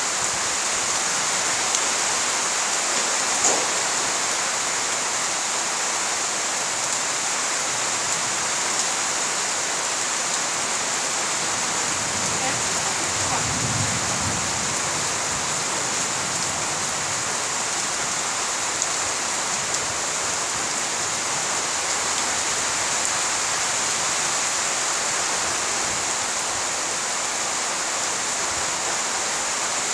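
Steady rain falling on trees, grass and flooded ground, an even hiss that does not let up.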